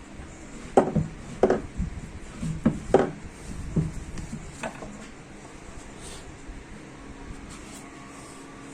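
About six sharp knocks and clunks of parts and tools being handled on a workbench during power-steering rack disassembly, bunched in the first half, followed by quieter handling noise.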